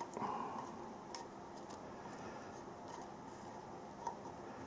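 Wooden chopstick scraping and tapping inside an opened tin of mackerel, prying out fish that is stuck in the can: a few faint scrapes and light clicks.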